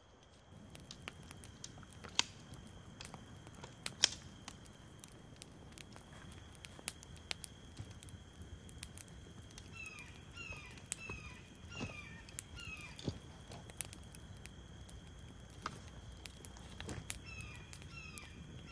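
Scattered clicks and crackles of outdoor handling or footsteps, with two sharper knocks in the first few seconds. A bird calls a run of short falling notes, about two a second, twice in the second half.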